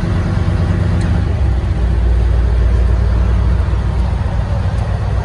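Ferry's engine running with a steady, deep rumble.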